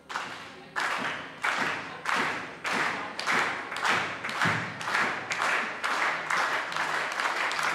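Spectators clapping in unison in a steady rhythm, about three claps every two seconds, starting about a second in.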